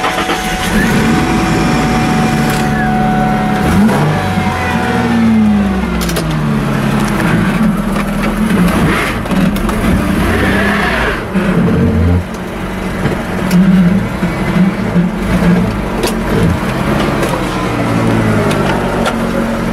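Car engines running close by, their pitch rising and falling as vehicles rev and move past.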